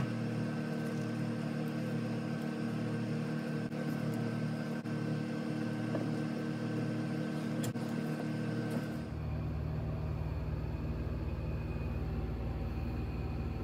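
Steady mechanical hum made of several held tones, changing about nine seconds in to a lower rumbling hum, with a few faint clicks.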